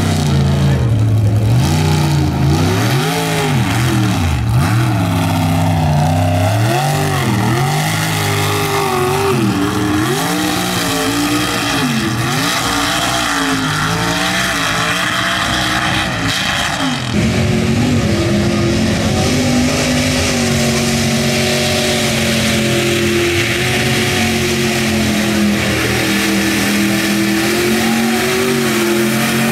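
Mud bog truck engine revving hard, its revs swinging up and down over and over, then holding a steadier, higher note from a little past halfway.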